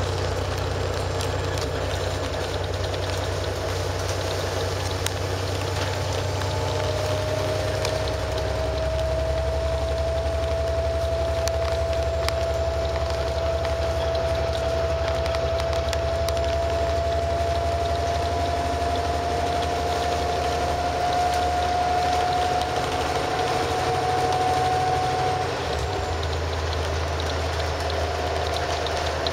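Inside a 2014 Grande West Vicinity (Yaxing JS6830GHDP) transit bus under way, its Cummins ISB6.7 diesel engine and ZF automatic driveline running with a steady low rumble. A whine starts about a quarter of the way in, rises slowly in pitch, and cuts off near the end as the rumble dips.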